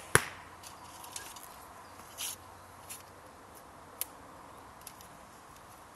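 A sharp smack just after the start, as the arrow shot from the Korean horsebow lands, a split second after the string's release. Then come faint clicks and a short rustle as the next arrow is taken and nocked on the string.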